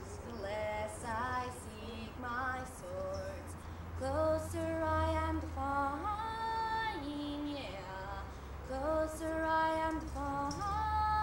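A young woman singing solo and unaccompanied, holding long notes and sliding up and down between them.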